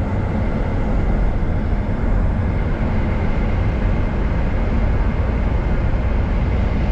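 Steady road noise heard from inside a car moving at highway speed: an even, low rumble of tyres and engine.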